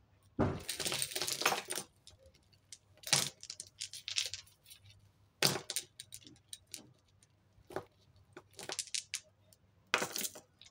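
Costume jewellery, metal chains and beads, jangling and clinking as pieces are rummaged through and lifted out of a heap. A longer rattle starts about half a second in and lasts over a second, followed by several shorter bursts of clinks.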